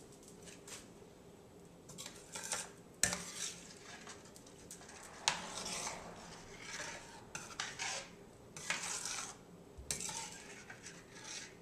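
Metal spoon stirring onions and gravy in a stainless steel frying pan, scraping around the pan in uneven strokes, with a few sharp clinks of the spoon against the metal about three seconds in, around five seconds in and again near the end.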